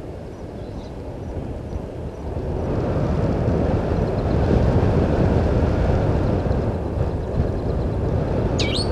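Low rumbling noise that swells about two and a half seconds in and then holds steady, with a single short, high bird call near the end.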